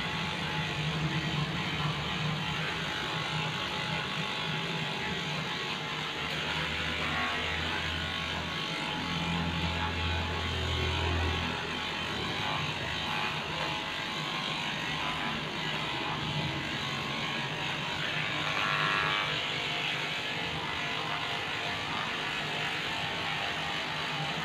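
Electric dog clipper running steadily as it shaves a heavily matted coat down to the skin.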